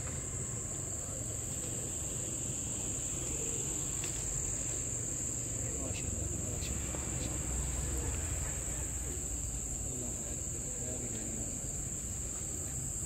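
Crickets chirring in one steady, unbroken high-pitched trill, with a low rumble and faint distant voices underneath.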